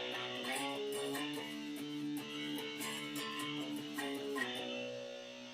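Harley Benton SC-400 SGT electric guitar played through an amp on its bridge pickup, strumming a run of quickly changing chords, then letting one chord ring out near the end.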